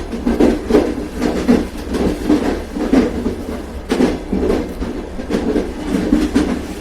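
Train running on rails: repeated clickety-clack knocks of the wheels over the rail joints, over a steady low rumble.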